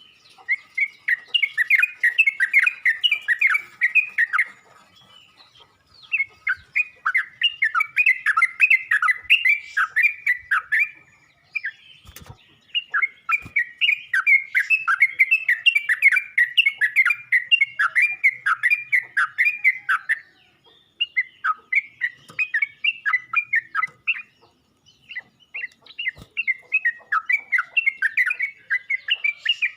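Sooty-headed bulbul (trucuk) calling: long bouts of quick repeated chirps, broken by short pauses about four, eleven, twenty and twenty-four seconds in.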